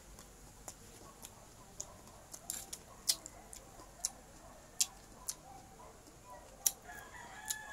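Close-up chewing of crisp raw green mango: irregular sharp crunches and wet mouth clicks, about a dozen of them.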